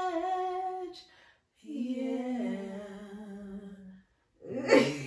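Women humming a short wordless tune in long held notes. The first phrase breaks off about a second in, and a second, lower phrase steps down in pitch. Laughter and talk break in near the end.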